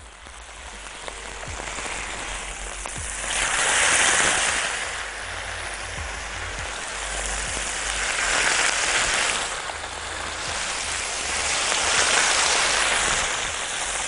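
Seasoned chicken breast fillets sizzling in oil on a hot ridged grill pan. The sizzle swells three times as more fillets are laid in.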